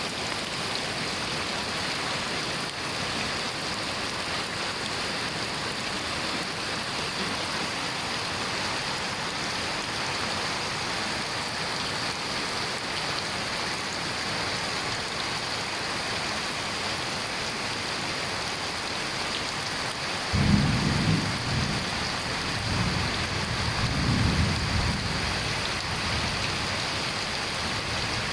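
Steady rain falling, an even hiss, with rolls of thunder rumbling in about two-thirds of the way through, the first starting abruptly and a second swelling a few seconds later.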